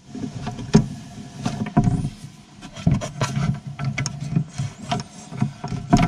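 Irregular clicks and knocks of one-handed trigger bar clamps being set and squeezed onto a glued bracket inside a plywood box, with hands handling the clamps against the wood.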